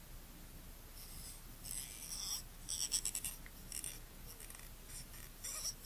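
Cotton swab rubbing inside a Nikkor 28mm f/2.8D lens to wipe out traces of oil: a run of short, scratchy rubbing strokes, starting about a second in and loudest around three seconds in.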